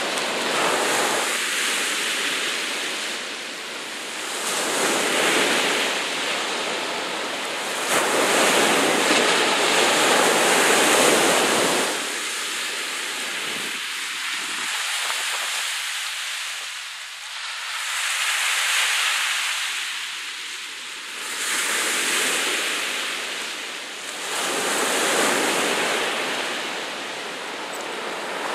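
Sea waves washing and breaking, a steady hiss of water that swells and fades every few seconds.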